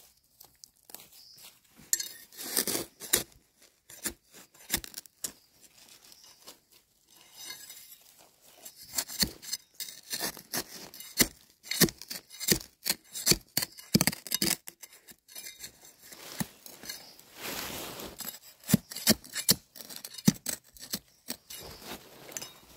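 Digging by hand in dry soil and leaf litter around a termite mushroom: irregular crunchy scrapes, rustles and clicks, busiest in the middle, with one longer scrape a few seconds before the end.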